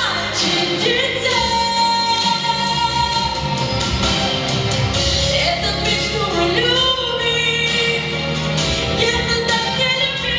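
A girl singing a song with musical accompaniment, her voice holding and bending long sung notes.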